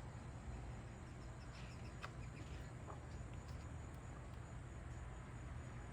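Quiet room tone: a steady low hum, with a few faint short high chirps and ticks about two seconds in.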